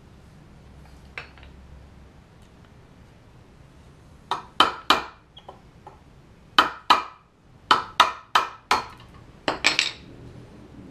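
Hammer striking a steel punch to drive the retaining pin out of an SKS rifle bolt resting on a wooden 2x4. About a dozen sharp taps in short groups of two to four, starting about four seconds in.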